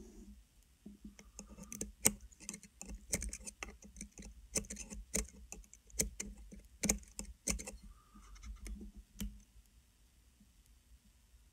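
Irregular sharp clicks and taps, several a second, stopping about two seconds before the end. They come from a vape mod's fire button being pressed repeatedly and tweezers working a rebuildable coil, strumming it to clear hot spots.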